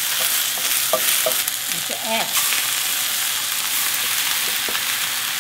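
Sliced onion, green onion and carrot sizzling steadily in oil in a stainless-steel frying pan, with a wooden spoon scraping and knocking against the pan a few times.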